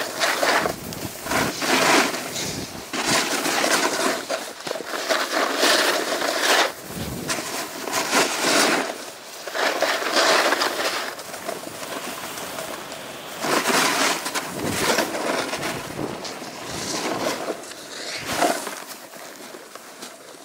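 Snowboard sliding on firm groomed snow, the edge scraping in surges that swell and fade with each turn, a surge every second or two; it grows quieter near the end.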